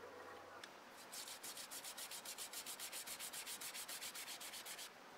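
Small brush scrubbing a steel billhook blade in soapy water: quick, even back-and-forth strokes, about eight or nine a second, starting about a second in and stopping shortly before the end.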